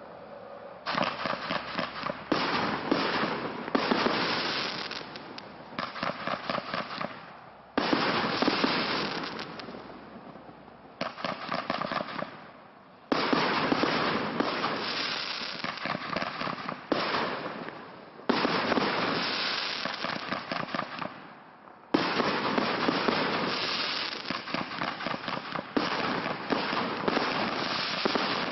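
Firework cakes firing, their shells breaking into dense crackling. The crackle comes in five waves, each starting sharply and fading over a few seconds.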